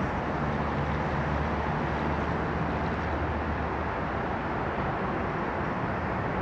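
Steady roar of a Boeing 777-300ER's twin GE90 jet engines on final approach, heard from the ground, with no breaks or changes.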